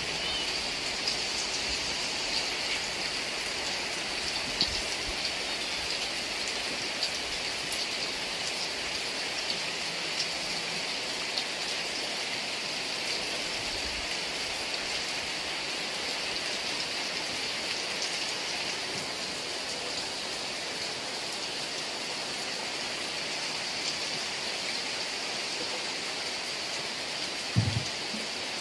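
Heavy rain falling steadily, with scattered drops ticking on a surface. A brief low thump comes near the end.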